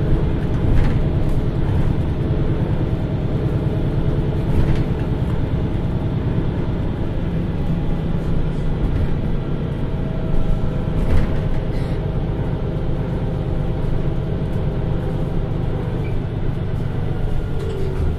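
Diesel engine of a MAN Lion's City A21 (NL323) city bus running steadily, with a couple of short sharp clicks or rattles along the way.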